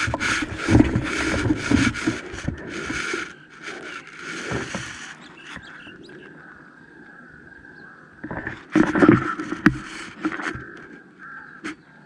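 Rustling and scraping handling noise as the scoped air rifle is moved and aimed, in two spells with a quieter stretch between. The second spell has a sharp click in it.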